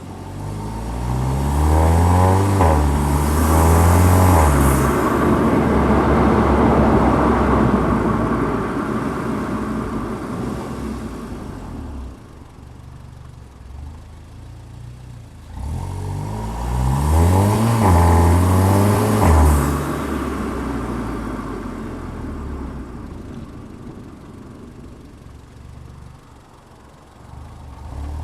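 Car engine and exhaust under hard acceleration, the pitch climbing and dropping back at each upshift, then easing off into a fading cruise. This happens twice, once about a second in and again a little past halfway.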